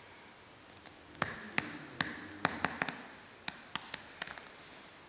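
A run of sharp taps and clicks, about a dozen at irregular intervals, the loudest about a second in, some with a short ring after them.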